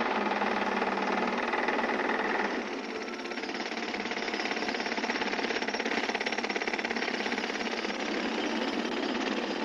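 Rapid, steady mechanical rattling with a continuous machine tone, which drops out about two and a half seconds in, leaving the rattle.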